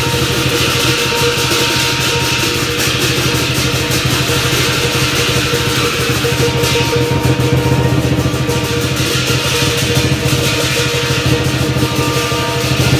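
Lion dance percussion band playing: a Chinese drum beaten in a fast, unbroken stream of strikes, with clashing cymbals and a gong ringing over it.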